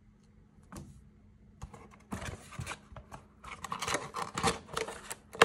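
Cardboard box and paper catalogue being handled: irregular rustling and crinkling that grows busier about halfway through, with a sharp tap near the end.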